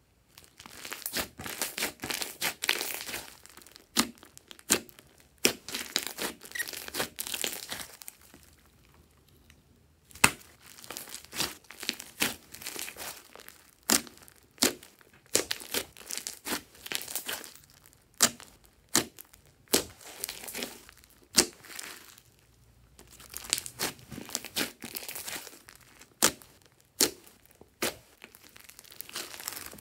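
Hands pressing, stretching and folding thick purple slime with small beads mixed in, giving bursts of crackling from air pockets, with sharp pops and clicks in between. There are short pauses about eight and twenty-two seconds in.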